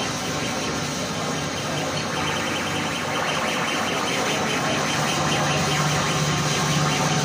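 Harsh noise played live on electronic noise devices and effects pedals: a loud, continuous wall of distorted noise with a fast flutter in the upper range over a steady low hum.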